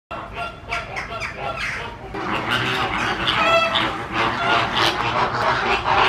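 A flock of flamingos honking, many calls overlapping, louder and denser from about two seconds in.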